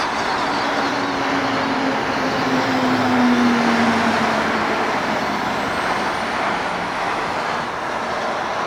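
Lockheed C-130 Hercules four-engine turboprop aircraft taking off: a steady loud roar with a low engine tone that falls in pitch as it passes, loudest about three seconds in, then easing off.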